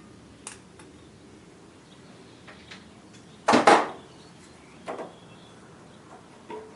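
Metal parts and tools clinking and knocking on the engine as the thermostat filler neck is worked loose: a few light clicks, then two sharp knocks close together about three and a half seconds in, another knock near five seconds and a small one near the end.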